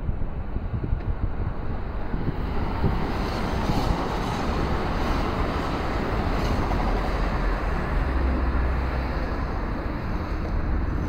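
Kintetsu limited-express electric train running past on the tracks below and pulling away: a steady rumble of wheels on rail with a few faint clicks, with wind on the microphone.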